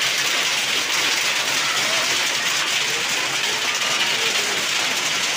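Heavy downpour with hail: a dense, steady hiss of rain and hailstones striking tin sheeting, a plastic tarpaulin and the ground.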